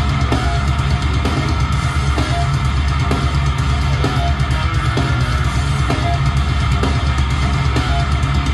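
Rock music with drums, electric guitar and heavy bass playing loud with a steady beat through an Eltronic 20-05 Dance Box 500 portable party speaker with two 12-inch woofers, heard in the room during a sound test.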